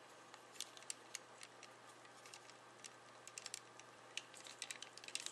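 Faint, scattered small plastic clicks and taps as a styrene armor piece of a Bandai 1/100 Gundam model kit is handled and slid into its slots on the leg, more of them toward the end.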